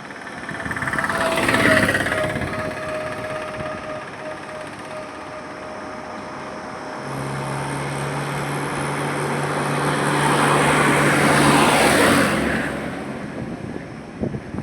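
Highway traffic: a vehicle rushes past about two seconds in. Then a heavier vehicle with a steady, deep engine hum approaches, growing louder, and passes about two seconds before the end.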